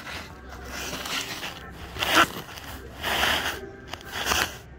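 Four short scraping, crackling rubs, the loudest about two seconds in: handling noise of a phone being moved against the car's underbody panels.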